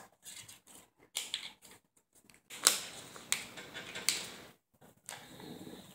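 Plastic card sleeves being handled: irregular crinkles and sharp clicks of thin plastic, with short pauses between them.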